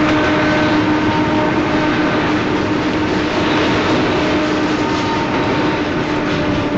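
Double-stack container train rolling past on the downgrade: a steady, even rumble of wheels on rail with a faint clickety-clack and a thin, steady whining tone running under it.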